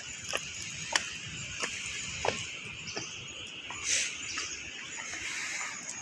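Footsteps at a steady walking pace, about three steps every two seconds, heard as short sharp ticks over a steady high hiss.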